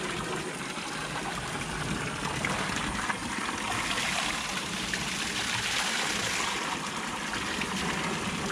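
Spring water running steadily at a campsite water source, a little fuller in the middle.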